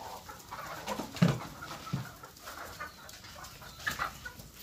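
A flock of desi hens clucking now and then, with a couple of low thumps about one and two seconds in.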